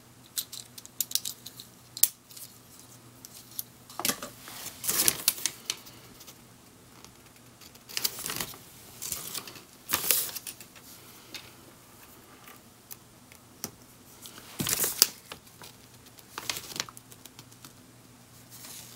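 LEGO Technic plastic parts clicking and clattering as they are handled, pressed together and set down on a table: irregular small clicks, with louder clusters about four, eight to ten, and fifteen seconds in.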